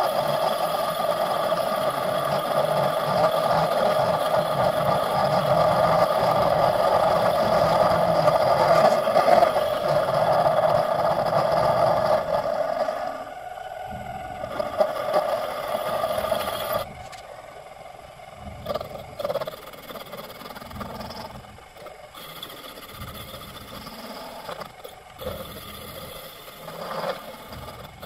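A workshop tool running steadily with a scraping sound for about thirteen seconds, easing off and stopping around sixteen seconds in; after that only light clatter and scattered clicks.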